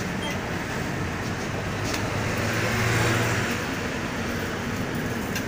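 City bus engine and road noise heard from inside the cabin: a steady rumble and hiss that swells for a moment about two to three seconds in.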